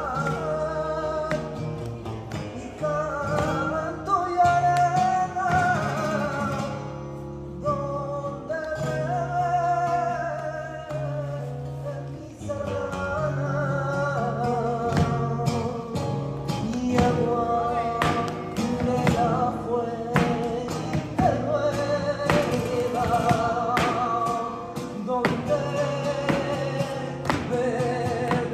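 Live flamenco: a singer's wavering, ornamented voice over strummed and plucked acoustic guitar, with sharp percussive strikes scattered through it.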